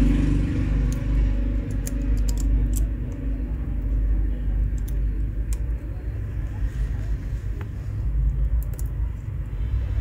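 A steady low rumble in the background, with a few small sharp clicks as a flex connector is pressed into place on a smartphone's circuit board.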